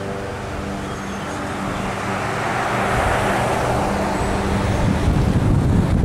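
Car engine running with a steady low hum, then road noise swells about two seconds in. Near the end, wind buffets the roof-mounted microphone as the car gets under way.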